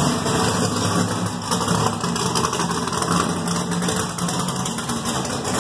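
NASCAR Winston Cup-style V8 race engine of a Pontiac Grand Prix stock car idling just after a cold start, a steady fast, choppy clatter of exhaust pulses.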